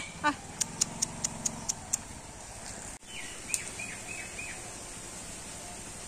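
Small birds calling: a quick run of about seven sharp, high clicks, then a couple of seconds later five short falling chirps.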